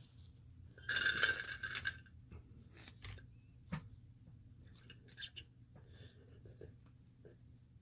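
A clattering rattle of small hard parts lasting about a second, starting about a second in, then a few light clicks and taps of parts and tools being handled on a workbench.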